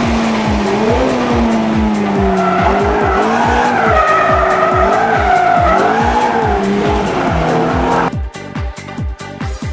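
Ferrari F430's V8 revving up and down again and again with tyre squeal as the car drifts, over background music with a steady beat. The car sound cuts off suddenly about eight seconds in, leaving only the music.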